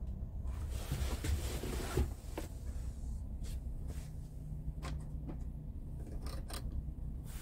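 Steady low rumble of a Scania R580's V8 diesel idling, heard inside the cab. A rustle about a second in, then a series of short clicks as the dashboard climate-control buttons are pressed.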